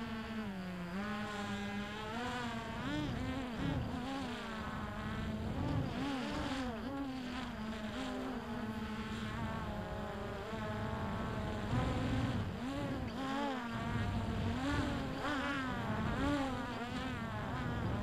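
Hubsan X4 Pro (H109S) quadcopter's motors and propellers buzzing, the pitch wavering up and down as the motors keep adjusting speed during a slow automatic return-to-home descent.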